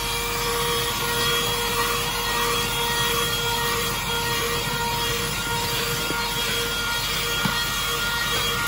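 GoMechanic Proton 6000 handheld car vacuum cleaner running at full speed: its motor whines at a steady pitch over the hiss of suction as the nozzle sucks dirt off a car floor mat, with a couple of faint ticks.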